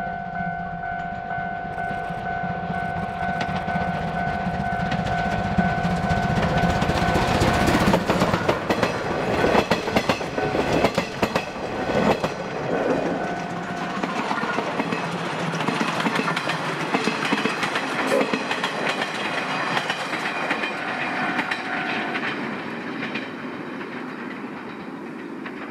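Steam-hauled train with a C12 tank locomotive passing close by, its wheels clacking over the rail joints, loudest about eight to thirteen seconds in before it fades. A steady ringing tone sounds for the first eight seconds or so.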